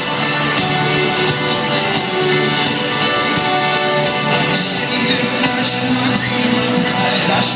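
Live folk-rock band playing an instrumental passage at full volume, with a steady driving beat and dense strummed chords, recorded from the audience at a concert.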